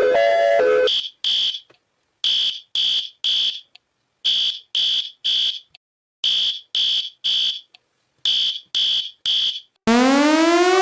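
Smoke or fire alarm sounding the temporal-three evacuation pattern: four groups of three short, high-pitched beeps, each group followed by a brief pause. The tail of a repeating melodic alert tone comes just before it, and near the end loud, repeated rising electronic sweeps cut in.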